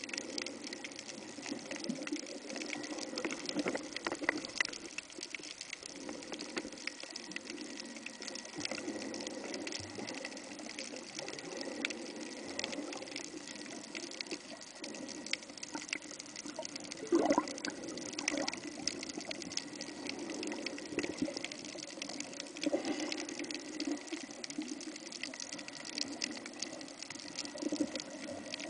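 Underwater sound picked up by a camera submerged over a coral reef: a steady wash of water with a constant crackle of faint clicks and a faint steady high tone. A brief louder burst stands out about seventeen seconds in.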